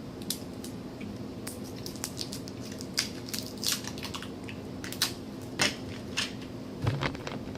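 Crinkling and crackling of a Now and Later candy wrapper being unwrapped and handled, in scattered sharp crackles and clicks, over a faint steady hum.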